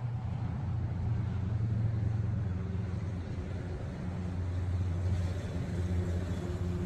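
An engine running steadily: a low, even rumble with a constant hum.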